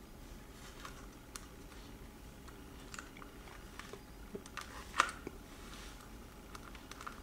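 Faint, scattered small clicks and taps from handling a hand awl with a plastic knob and metal shaft, as it is unwound and fitted to a picture-frame hanger; the sharpest click comes about five seconds in.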